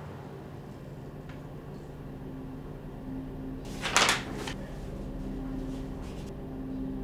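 Sheets of printed paper handled and flipped, with one brief loud rustle about four seconds in and a few fainter rustles, over a steady low room hum.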